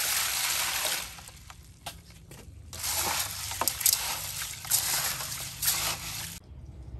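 Water poured into a metal basin of dry mung beans, then hands sloshing and rubbing the beans in the water to wash them, with small clicks of beans against the basin. The sloshing stops abruptly near the end.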